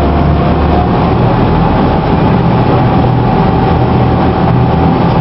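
Tour boat's engine running steadily under way, driving its brass propeller and paddle wheel, with a thin steady whine over a low hum.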